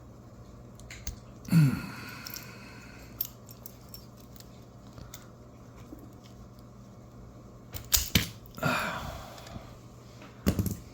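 A few separate sharp clicks and knocks of small metal objects being handled on a bench, the lock and screwdriver bits picked up and set down, over a faint steady low hum.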